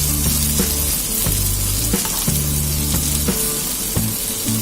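Spice-coated okra sizzling steadily in hot groundnut oil in a pan, left to fry crisp. Background music with low sustained notes plays underneath.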